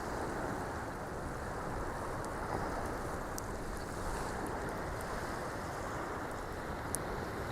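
Steady rushing noise of wind and water, with no clear engine tone and a few faint ticks.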